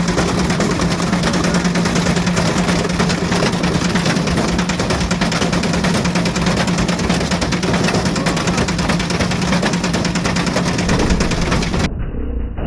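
Ariston Margherita washing machine running with a brick tumbling inside the drum: a steady motor hum under a dense, rapid clatter of knocks and rattles. It cuts off suddenly near the end.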